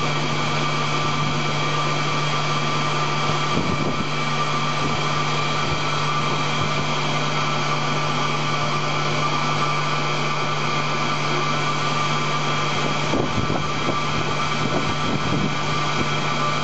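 High-shear batch mixer (emulsifier) running steadily as it mixes a thick white emulsion: a constant low motor hum with a higher steady whine over it.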